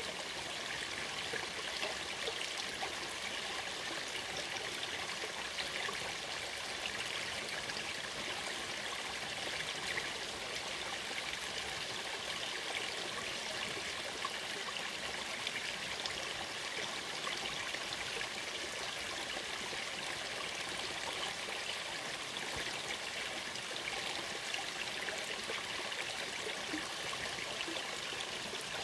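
A shallow forest stream running steadily over rocks, an even, unbroken sound of flowing and trickling water.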